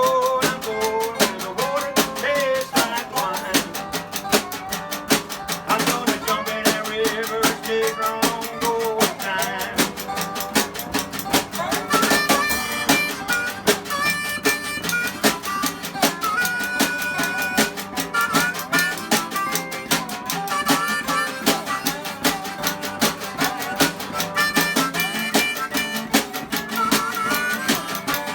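Acoustic jug-band style group playing an instrumental passage: harmonica over strummed guitar and ukulele, with spoons and a brushed snare keeping a steady clicking beat.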